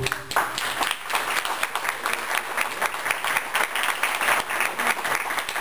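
An audience applauding as a song ends, many hands clapping at once.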